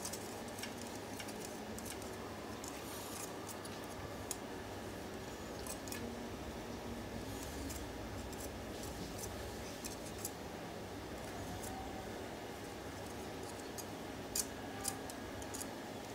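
Small laptop cooling fan running after repair, a faint steady whir, with scattered light plastic clicks from handling it, several of them near the end.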